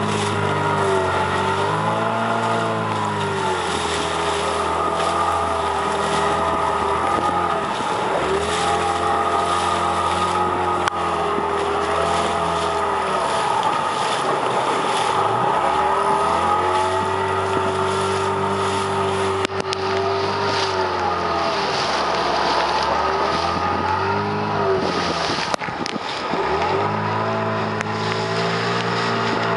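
Outboard motor of an inflatable boat running, its pitch rising and falling repeatedly as the throttle is worked, with a sharp drop and recovery near the end. A steady hiss of wind and water runs underneath.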